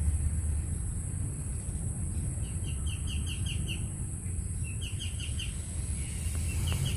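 A bird calling in quick runs of short chirps, about five a second, in two bursts near the middle. Underneath are a steady high-pitched drone and a low rumble.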